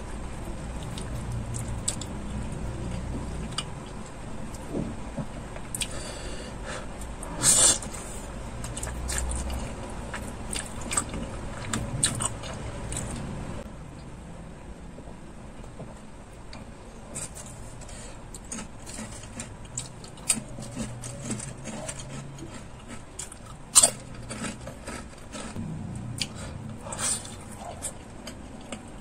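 Close-miked eating sounds: wet chewing and slurping of noodles with many small mouth clicks and smacks. Two sharp knocks stand out, one about a quarter of the way in and one near the end. A quieter stretch around the middle goes with drinking from a bottle, and near the end fried chicken is bitten and chewed.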